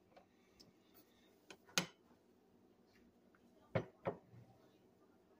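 Kitchen clatter: scattered light clicks and knocks of kitchenware being handled, with a sharper knock about two seconds in and a close pair near four seconds.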